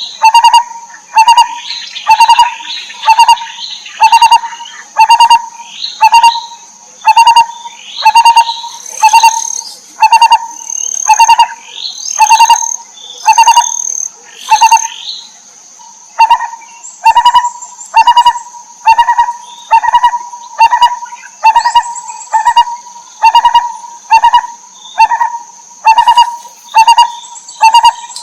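Lineated barbet calling a loud, low note that repeats about once a second. Higher chirps of other birds are thick in the first half, over a steady high-pitched whine.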